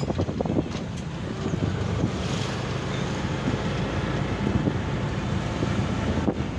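Auto-rickshaw engine running steadily from inside the moving cab, with road noise and wind buffeting the microphone.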